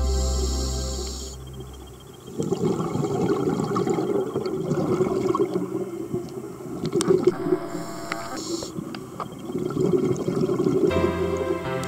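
Underwater sound of scuba exhaust bubbles from a diver's regulator, a rough, crackling rush heard through the camera. Background music fades out in the first two seconds and comes back near the end.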